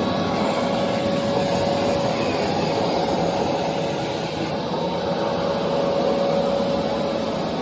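Einhell TC-VC 1812 S wet and dry vacuum cleaner's 1250 W motor running steadily: a constant whine over a rush of air, dipping slightly about four seconds in.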